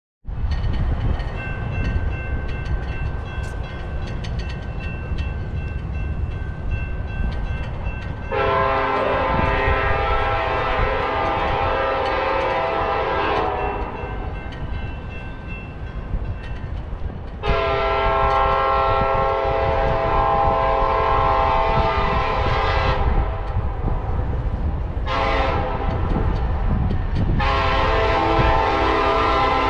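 Diesel freight locomotive horn sounding the grade-crossing signal: two long blasts, a short one, and a long one starting near the end, over the low rumble of the approaching train.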